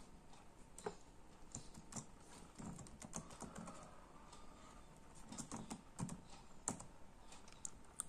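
Quiet, irregular key clicks on a laptop keyboard as a password is typed in.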